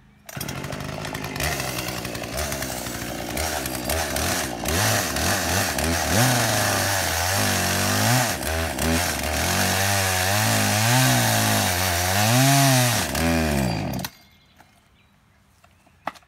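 Gas chainsaw starting up and cutting into the trunk of a small tree, its engine pitch rising and falling as the throttle and load change. It shuts off abruptly about fourteen seconds in.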